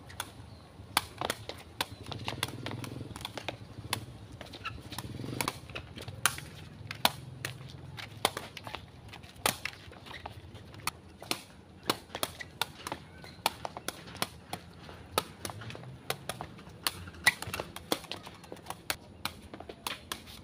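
Woven sepak takraw ball being kicked and juggled back and forth between players: a long run of sharp slaps, irregularly spaced at about one or two a second, as it strikes feet, knees and heads.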